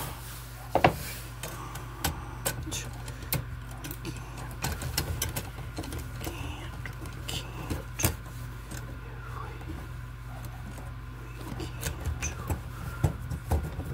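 Scattered clicks and light metallic rattles of bare copper ground wires being handled and bent inside a steel junction box, over a steady low hum.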